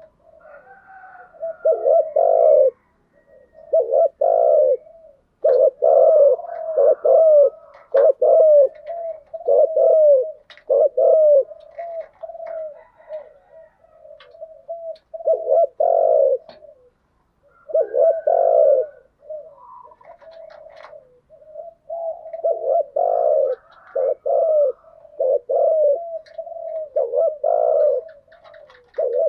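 Spotted doves cooing over and over: loud, deep coo phrases in irregular clusters a second or two apart, with softer cooing carrying on between them and a quieter stretch about halfway through.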